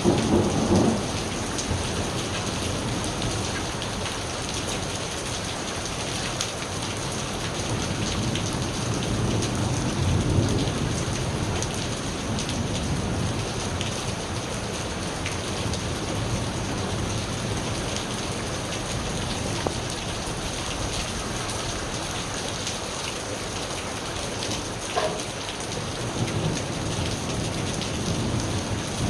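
Steady heavy rain falling, with low thunder rumbles swelling near the start, again about ten seconds in, and near the end.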